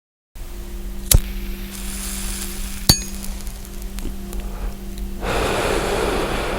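Soundtrack or sound design: after a moment of silence, a low steady drone with two held tones, two sharp clicks about two seconds apart, then a hissing swell about five seconds in.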